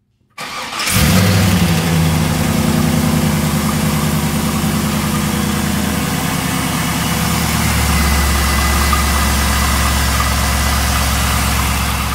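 Pontiac Firehawk's V8 cranking briefly, catching about half a second in and settling into a steady idle. This is the first start after the power steering system is filled, run so the pump draws fluid down and primes.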